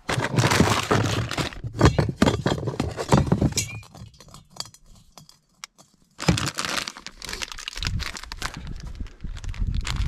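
Close rustling and crinkling of a plastic wrapper and of things being handled, with scattered clicks and knocks. It drops away for about two seconds in the middle, then starts again.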